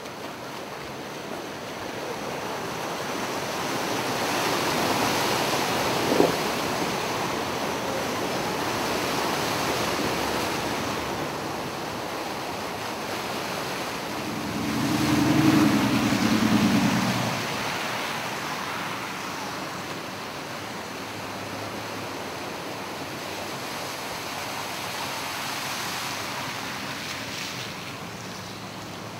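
Steady rush of floodwater with wind buffeting the microphone. About halfway through, a minivan drives through the flooded street: its engine and the wash swell up and fade over about three seconds. There is a single sharp knock about six seconds in.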